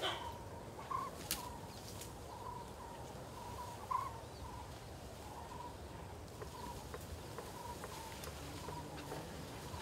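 A bird calling over and over, short single notes repeated every second or so, over faint outdoor ambience, with a sharp click about a second in.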